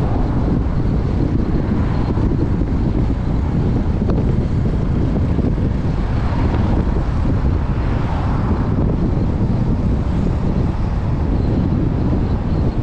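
Wind buffeting the microphone in a steady, loud low rumble, with a faint rise in hiss around the middle.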